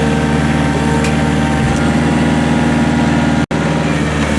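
Kubota tractor's diesel engine running steadily while it works a log grapple, with a momentary break in the sound about three and a half seconds in.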